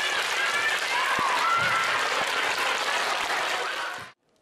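An audience of young children clapping, with high voices calling out over the applause. It cuts off abruptly about four seconds in.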